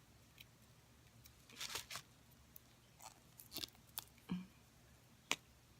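Faint handling sounds of a lip balm being opened: a short rustle, then several small clicks and taps, the sharpest near the end.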